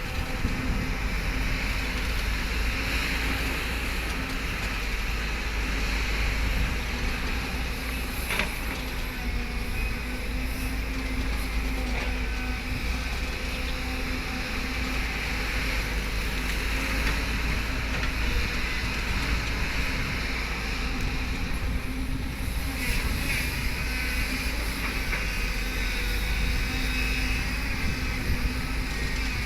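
Excavator's diesel engine running steadily while it digs, a constant low drone with rattle, and a single sharp knock about eight seconds in.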